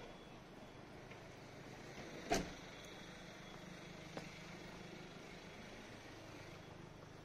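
Faint city street ambience: a steady low hum of road traffic, broken by one sharp knock about two seconds in and a fainter click about four seconds in.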